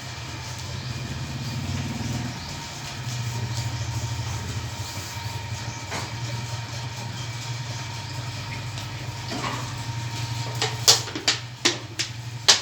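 A small motor running with a steady low hum, with a few sharp clicks or knocks near the end.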